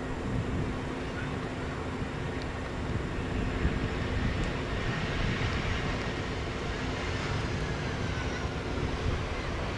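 Airbus A320 airliner's jet engines at approach power as it flares low over the runway to land. The engine noise swells in the middle, then drops slightly in pitch as it passes.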